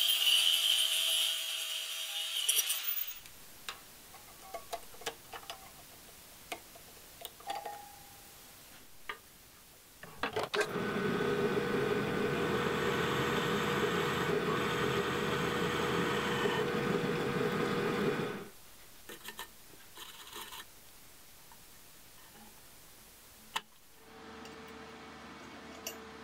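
Angle grinder grinding steel, throwing sparks, for about three seconds before it cuts off. A few light knocks follow, then about eight seconds in, a drill press runs steadily, drilling through a steel latch plate, and stops.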